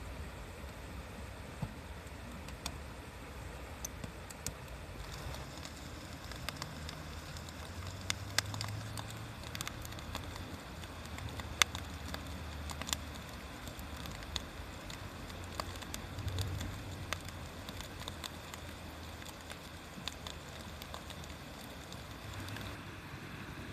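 Wood fire crackling, with irregular sharp pops scattered throughout and one louder pop about halfway through, over a steady low rumble.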